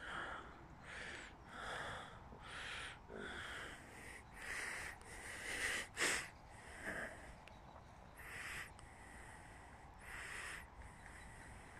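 Breathing close to the microphone: a run of breathy, slightly wheezy in-and-out breaths, about one a second at first and then slower. One sharp click comes about six seconds in.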